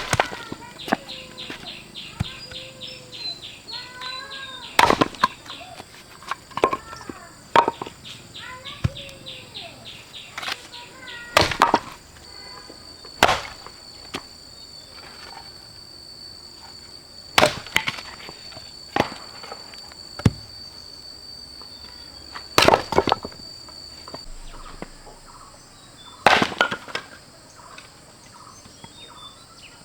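Sharp single blows, chopping or knocking, at irregular intervals every two to four seconds, over insects chirring and birds calling. A steady high insect whine runs through the middle stretch and stops about two thirds of the way in.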